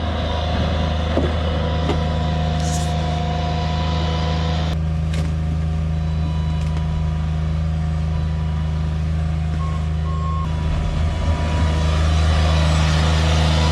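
Vehicle engine running steadily with a low hum. A few short electronic beeps sound about ten seconds in and again near the end.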